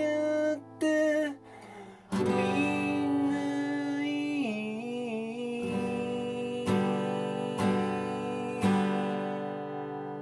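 Acoustic guitar playing the closing chords of a song: single strums a second or so apart, the last chord left ringing and slowly fading.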